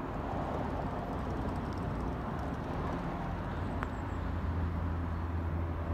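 Steady low outdoor rumble that grows louder about four seconds in, with one faint click just before the swell.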